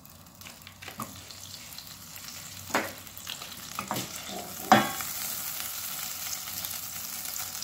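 Butter melting and starting to sizzle in a stainless steel frying pan, the sizzle growing steadily louder. A few knocks cut in, the loudest about halfway through.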